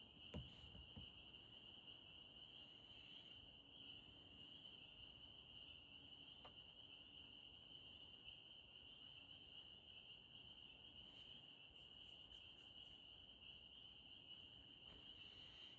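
Faint chorus of many frogs calling together, merging into one steady, unbroken high-pitched trilling drone.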